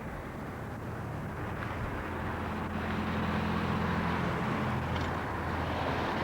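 Steady low engine hum under a rushing noise, the hum growing stronger about two seconds in and easing near the end.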